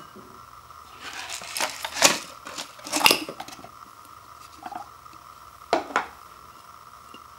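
A dry instant-ramen noodle block tipped out of a paper cup into a ceramic bowl: a rustling scrape, then two loud knocks about a second apart as the block hits the bowl. Near the end there are two lighter knocks as the empty cup is set down.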